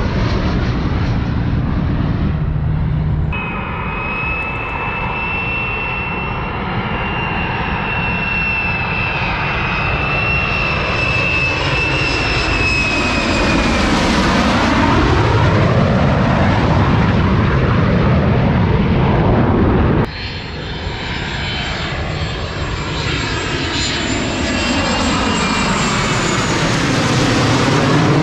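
Fighter jet engines passing low overhead. First F-35s on final approach with landing gear down, with a steady high whine that drops slightly as they pass. After a cut about two-thirds of the way in, a pair of F-16s fly over.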